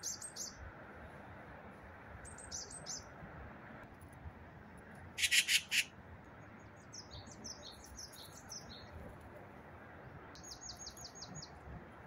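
Wild birds calling: short, high chirps in several clusters, a louder, harsher burst of notes about five seconds in, and a quick run of about seven even notes near the end. Distant road traffic makes a steady hum underneath.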